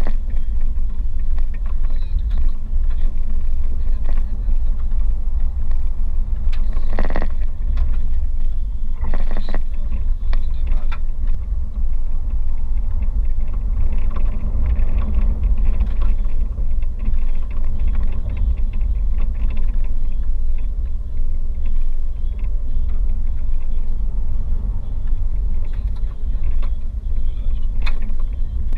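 A car driving on a rough gravel and sand road, heard from inside the cabin: a continuous low rumble of tyres and engine with constant small clatter and knocks as it goes over bumps, two of them stronger, about seven and nine and a half seconds in.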